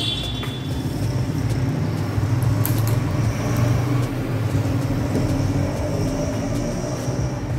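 A steady low mechanical hum, like machinery or a vehicle running, with a few faint clicks.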